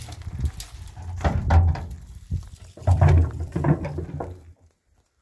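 An empty steel drum being handled on stony ground: irregular hollow knocks and scrapes as it is tipped and set upright, with the rustle of dry branches. The sound stops about four and a half seconds in.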